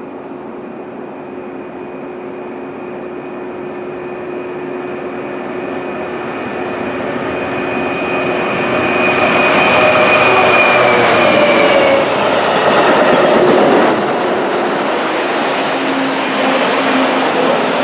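Yellow on-track maintenance machine approaching and passing close by, its diesel engine and wheels on the rails growing steadily louder to a peak about ten seconds in. A steady high whine runs over the rumble and fades as the machine draws level.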